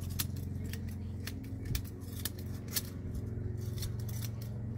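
Hand scissors snipping grass along a lawn edge: a quick regular run of sharp cuts, about three or four a second, over a steady low hum.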